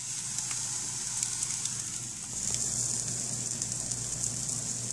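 Beer bratwursts sizzling on a hot grill: a steady hiss with scattered small crackles and pops.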